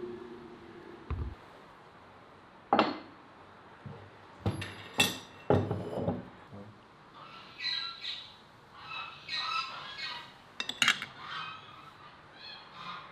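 Clay and ceramic dishes clinking and knocking as they are handled and set down on a wooden table, several sharp strikes in the first half. Birds chirp in the background from about seven seconds in.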